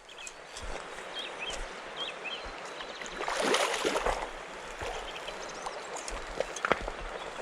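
Small stream running over stones, with a louder surge of splashing water for about a second, roughly three and a half seconds in.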